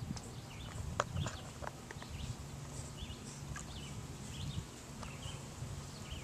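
Small songbirds chirping over and over in short phrases, over low sloshing of water as a schipperke wades through the shallows, with one sharp click about a second in.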